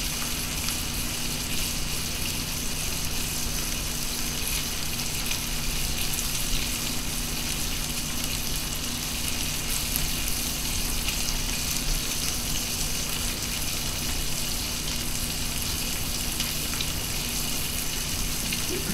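Tri-tip beef roast searing in a very hot roasting pan on the stovetop: a steady sizzle and crackle of the meat in hot fat.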